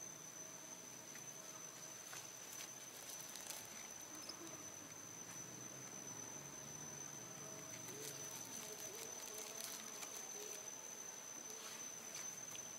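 Faint outdoor ambience dominated by a steady, high-pitched insect trill, with scattered soft clicks and rustles.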